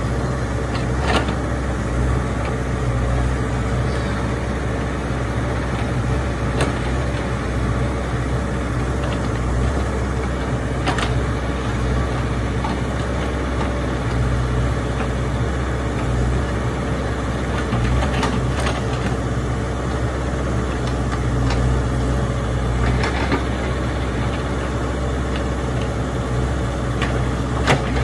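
Caterpillar 426F backhoe loader's diesel engine running steadily, with a few short sharp knocks now and then.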